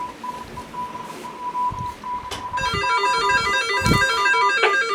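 Weather radio receiving a NOAA Weather Radio alert: a steady tone near 1 kHz, the 1050 Hz warning alarm tone, keeps breaking up over static. About halfway in, a rapid stepped electronic alarm melody from the receivers starts and carries on over it.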